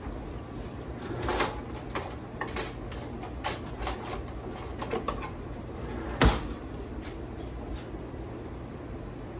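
A kitchen utensil drawer pulled open and cutlery clattering as a knife is picked out, then a single loud knock about six seconds in as the drawer is shut. A low steady hum runs underneath.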